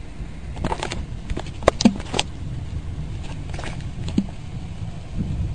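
Night thunderstorm ambience: a steady low rumble with a few sharp taps and clicks scattered through it, the loudest cluster about two seconds in.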